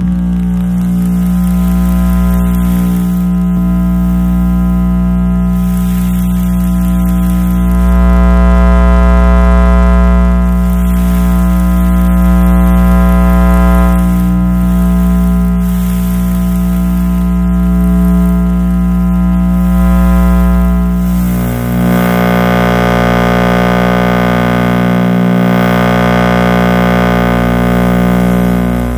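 Electromagnetic interference from electrical equipment, picked up by an RFI probe: a loud, steady electrical buzz with many overtones over a low rumble. About three-quarters of the way through it shifts to a brighter, hissier buzz.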